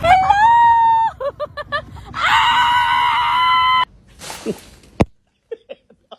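Loud, drawn-out, high-pitched screaming cries: one long cry, a few short yelps, then a second, louder cry held for more than a second. A brief rustle and a sharp click follow.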